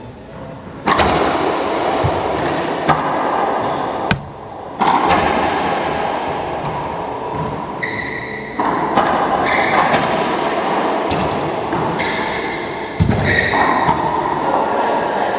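Racquetball rally: sharp smacks of racquet on ball and ball off the court walls, ringing in the enclosed court, with short sneaker squeaks on the hardwood floor. The hits start about a second in.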